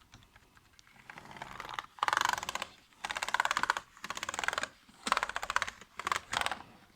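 Rapid key presses on a newly fitted ThinkPad T440p laptop keyboard, in about five quick runs of clicks, checking that the keys spring back and don't stick.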